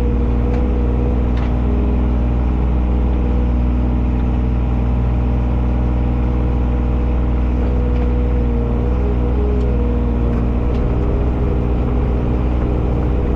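Service truck's engine running steadily as the truck drives along, a constant low drone with a near-even engine note.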